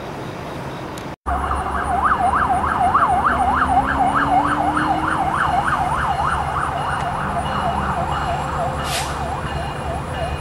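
Emergency vehicle siren on a fast yelp, rising and falling about four times a second and easing slightly toward the end, over the steady low rumble of a diesel locomotive.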